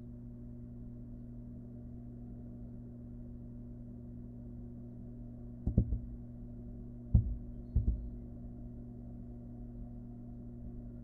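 Dull knocks and thumps from barn owl fledglings moving about inside their nest box: a couple about halfway through, then three more close together shortly after, over a steady low hum.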